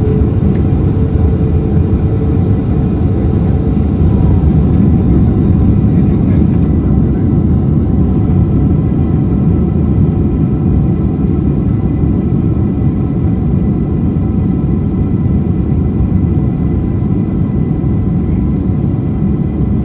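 Boeing 767's twin jet engines at takeoff power, heard from inside the cabin: a loud, steady rumble with a faint whine on top.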